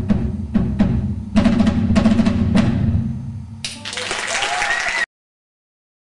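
Live band music driven by a drum kit, a steady pattern of drum hits over a low bass, which stops about three and a half seconds in. A burst of audience applause and cheering follows and cuts off abruptly about a second and a half later.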